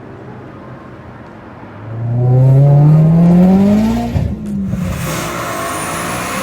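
Boosted car engine accelerating hard: a low, steady run, then about two seconds in the engine note climbs steadily under throttle, drops suddenly about four seconds in as if on a gear change, and pulls on with a faint high whine near the end.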